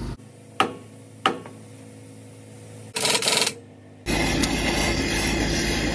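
Two sharp clicks and a short burst of gas hiss, then a gas cutting torch lit and running with a steady hiss from about four seconds in. Its nozzle is worn out and gives too little heat to cut.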